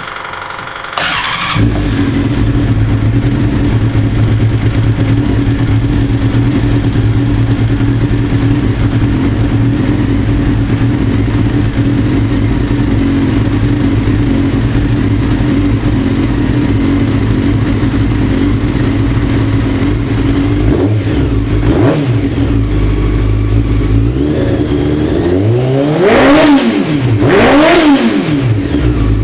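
Four-cylinder race car engine starting about a second in and then idling steadily. There are short throttle blips around twenty seconds in, and near the end two revs that rise and fall back to idle.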